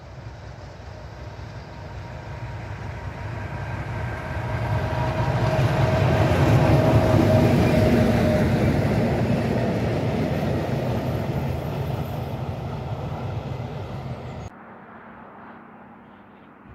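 Train passing close by on the rails: a low rumble that builds as it approaches, peaks about seven seconds in with a steady hum over it, then fades as the coaches roll past, and cuts off suddenly near the end.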